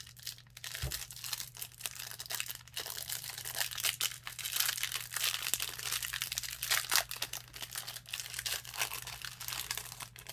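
Clear plastic wrapper of a trading-card pack crinkling and tearing as it is opened by hand.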